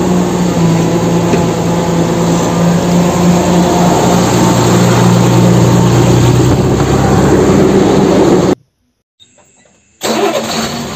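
Engine running with a steady hum that deepens a little about four seconds in. It cuts off abruptly near the end, leaving a second or so of near silence before sound starts again.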